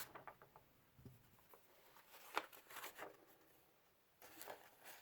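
Near silence in a small room, broken by a few faint clicks and rustles of something being handled.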